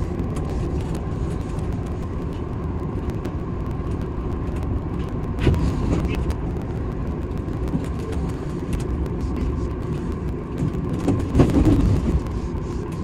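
Steady running rumble of an Odakyu 8000 series electric train, heard from inside the driver's cab, with a faint steady hum and a few louder knocks, one about halfway and more near the end.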